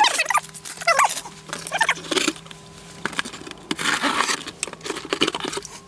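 Several short, high, wavering whines, then a scrape of cardboard and a few light knocks as a cardboard packing box is handled and opened.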